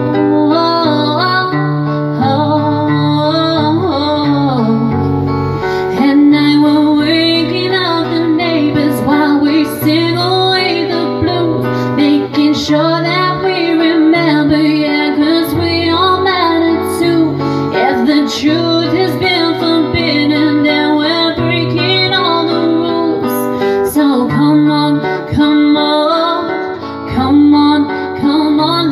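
A woman singing with a strummed acoustic guitar accompaniment, continuously.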